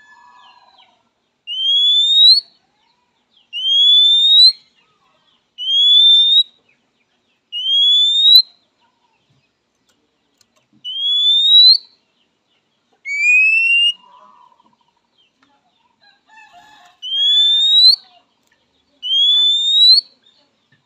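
Oriental magpie-robin (kacer) giving its typical rising whistle call again and again, the call it uses to challenge a rival. Each whistle lasts about a second and they come roughly every two seconds, with two short pauses; one whistle is lower-pitched. Soft, faint chattering notes fall between some of the whistles.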